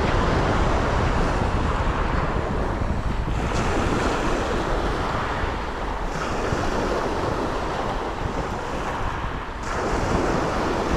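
Sea surf washing onto the shore, swelling again every few seconds, with strong wind buffeting the microphone as a low rumble.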